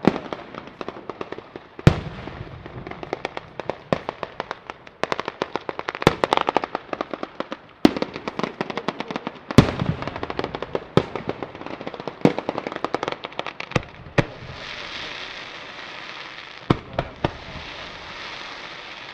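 Ground firework battery (batteria sanseverese) going off: a rapid chain of firecracker bangs and crackling, with louder single reports every second or two. About fourteen seconds in the bangs thin out and a steady hiss of fountain fireworks takes over, with a few more bangs near the end.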